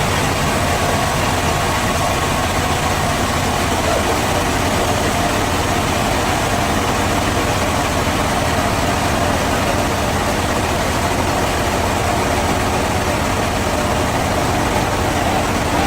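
Sawmill machinery running steadily: a constant engine-like drone that holds the same level throughout.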